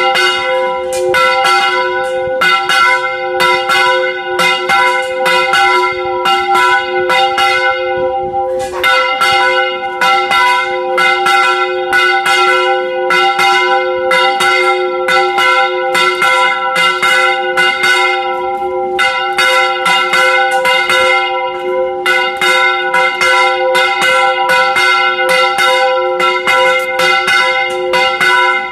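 Large church bells rung by hand in a rapid repique, their clappers pulled by ropes so that loud strokes follow close on one another over the steady ring of the bells' tones. The strikes pause briefly about eight seconds in, while the ringing carries on.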